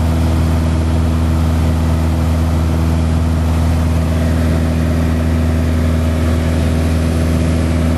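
A light aircraft's engine droning at a steady pitch in cruise flight, heard from inside the cockpit.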